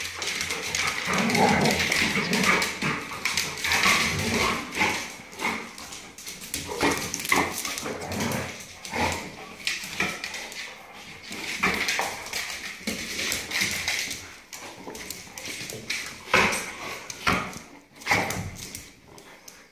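Several dogs play-fighting, with barks and whimpers over constant scuffling and claw clicks on a tile floor.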